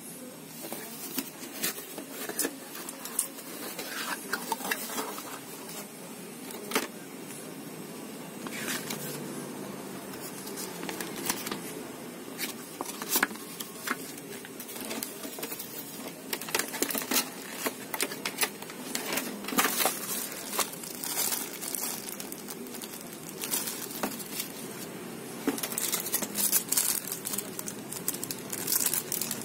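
Hands unpacking a cardboard box: cardboard scraping and paper and plastic packaging rustling and crinkling, with many short sharp clicks and taps, busiest near the end as a radio antenna is pulled from its plastic sleeve.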